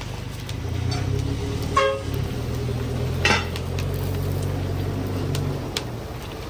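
A motor vehicle's engine runs close by as a steady low rumble that builds about a second in and eases off near the end. A short pitched toot sounds about two seconds in, and a single clank comes a little after three seconds.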